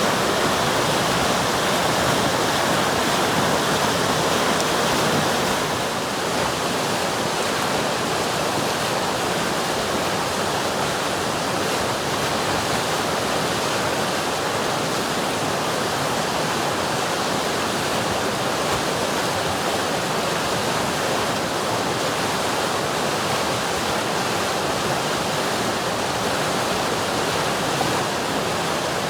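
River water rushing steadily over rocks, a continuous even rush, dipping slightly in level about six seconds in.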